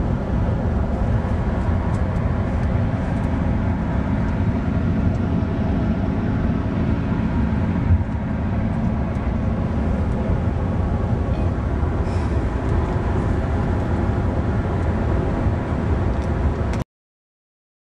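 Steady road and engine noise inside a car's cabin at motorway speed, a low rumble with tyre hiss. It cuts off abruptly near the end.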